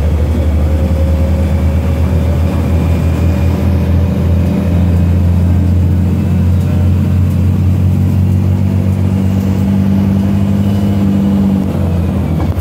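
Bus engine and road noise heard from inside the cabin while driving on a highway: a loud, steady low drone that dips briefly near the end.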